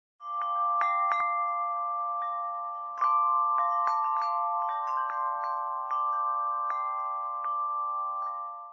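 Wind-chime sound effect over a held chord of several steady tones, with many short bell-like strikes scattered through it. It fades in just after the start, swells once about three seconds in, and cuts off near the end.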